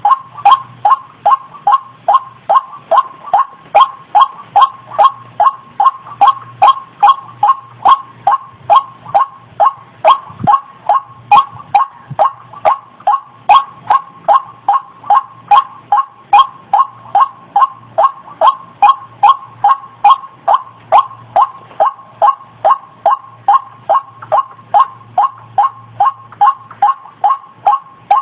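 White-breasted waterhen (ruak-ruak) call, a short 'kruok' note repeated over and over at an even pace of roughly two to three calls a second, played as a lure call.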